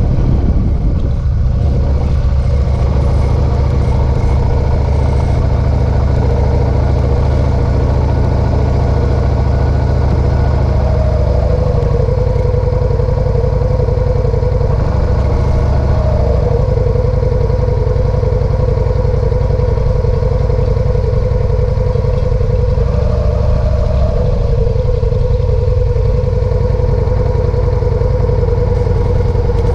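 Motorcycle engine at low revs as the bike rolls to a stop, then idling steadily while it waits.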